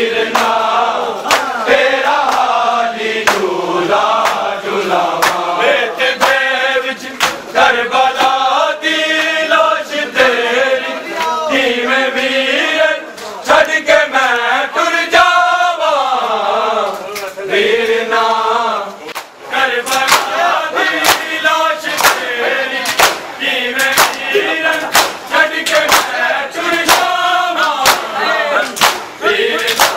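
Shia mourners chanting a noha in a lamenting melody, several male voices together, while the crowd beats its chests in time with sharp slaps about once a second (matam).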